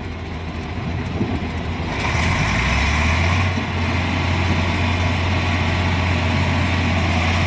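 Vehicle engine running with a steady low drone over road noise, both getting louder about two seconds in.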